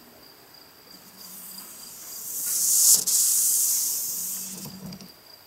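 2004 Chevrolet Tahoe rear wiper on its final test sweep after the motor's reinstallation. A swishing hiss builds from about a second in, peaks with a sharp click near the middle, and fades away by about five seconds.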